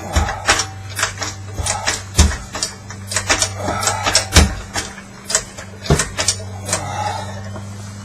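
Sharp metallic clicks and knocks, several a second and irregular, from hand tools working on metal during a transfer-case install, over a steady low hum.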